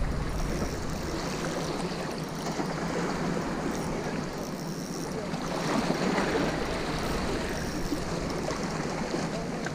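Seawater washing against the shore, a steady rushing that swells briefly about six seconds in.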